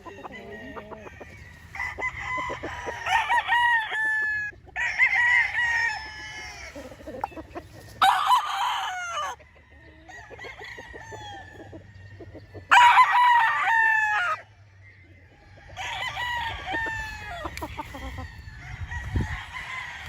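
Roosters crowing in turn, about five long crows with some overlapping, the loudest two about a third and two thirds of the way through, with chickens clucking between them.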